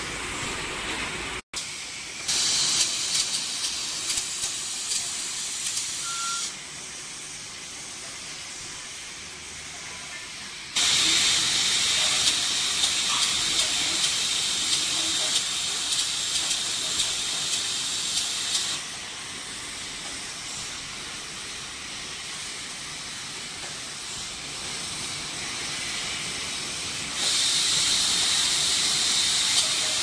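Automatic bottled-water filling and capping line running, with a steady high hiss over the machinery. The hiss gets louder and quieter in long stretches of several seconds, with a few small clicks.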